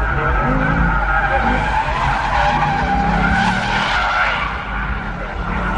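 Chevrolet Camaro SS drifting: tyres squealing steadily while the V8 engine runs underneath, its pitch rising and falling with the throttle.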